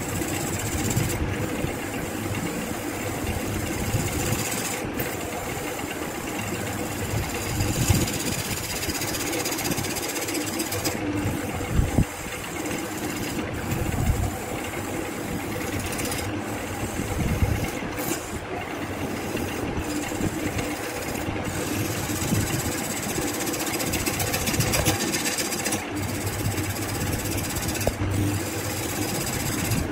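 BURT wood lathe running while a turning tool cuts a spinning blue resin blank: a steady scraping hiss over the motor's hum, with a few louder knocks.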